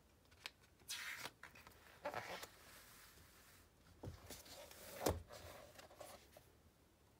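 A picture book's paper page being turned: a few short rustles, then two soft knocks about four and five seconds in, the second the loudest.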